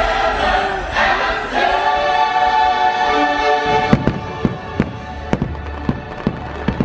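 Orchestral show music with a choir singing, which drops away about four seconds in as a quick run of sharp firework bangs begins, two or three a second, over a low rumble.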